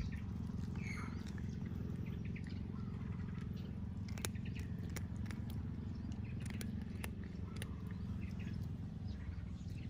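A cat purring steadily while eating dry kibble, with a few sharp crunching clicks from its chewing in the second half.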